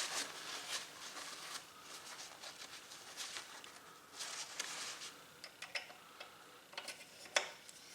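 Scattered light clicks and taps of small metal parts being handled and fitted while a jigsaw's shaft assembly is put back together, with one sharper click near the end.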